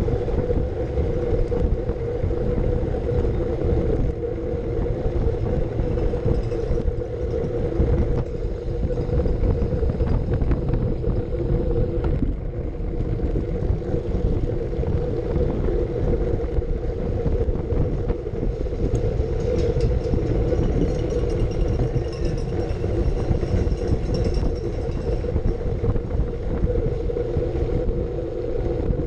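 Wind rushing over a bike-mounted camera's microphone, with road rumble from a Brompton folding bike ridden at racing speed. A steady hum sits under the rumble.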